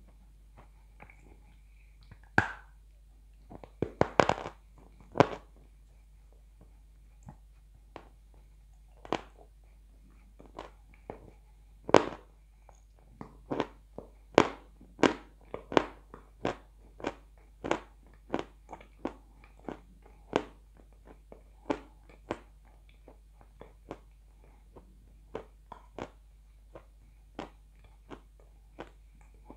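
Close-up crunching and chewing of dry edible clay: a string of sharp, crisp crunches, scattered at first, then coming steadily about once or twice a second from about halfway through.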